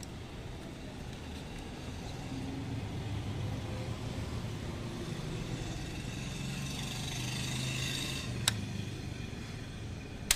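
A motor vehicle's engine sound that builds up over several seconds and then eases off. A sharp click comes about eight and a half seconds in and another at the very end.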